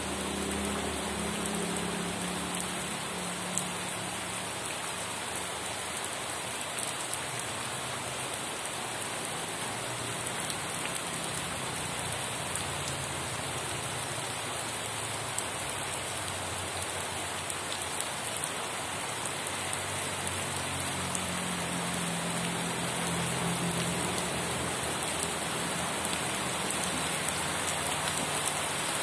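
Steady rain falling, a dense hiss sprinkled with the ticks of individual drops. A low rumble swells briefly near the start and again about two-thirds of the way through.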